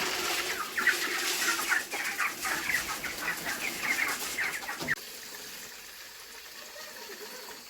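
A flock of broiler chickens calling, many short overlapping cheeps and clucks, which stop abruptly about five seconds in, leaving a faint steady hiss.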